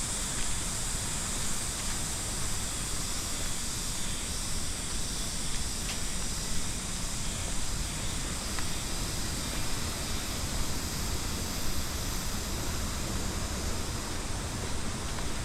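Steady outdoor rushing noise with a low rumble and a high hiss, with no distinct events.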